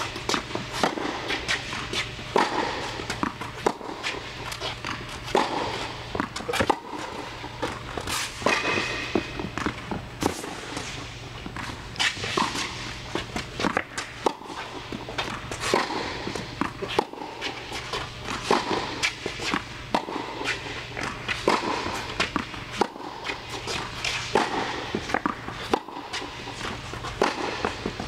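Tennis balls struck by a racket in a groundstroke drill on an indoor court. Sharp hits and ball bounces come every couple of seconds, mixed with shoe steps and scuffs, over a steady low hum.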